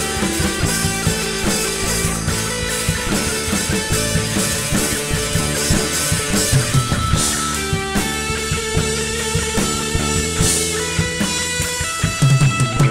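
Rock band jamming in the studio: guitar and drum kit playing together.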